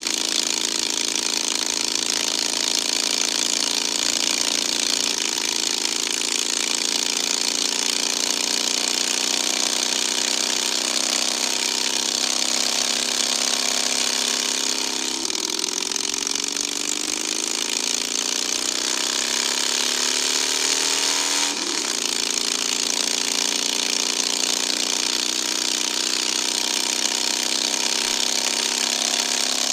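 Motorcycle engine running at road speed, with a steady rush of wind on the microphone. The engine note holds steady, climbs for several seconds from about fifteen seconds in as the bike accelerates, drops with a gear change about 22 seconds in, then settles again.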